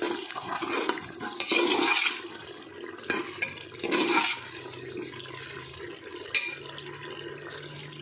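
A steel ladle stirring a wet, oily tomato masala in a pressure cooker pot, with a few louder wet sweeps through the mix and a single sharp clink of the ladle against the pot about six seconds in.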